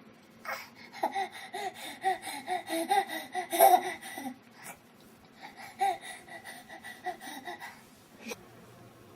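A baby laughing in short, rapidly repeated high-pitched giggles, in two runs with a pause of about a second and a half between them.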